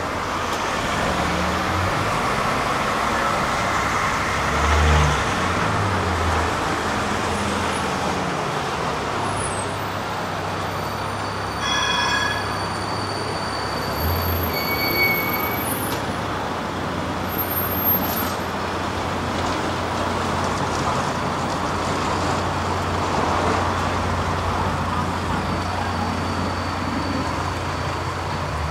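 Street traffic noise: cars and trams running along a city street. About twelve seconds in, a short pitched ring or tone sounds over the traffic.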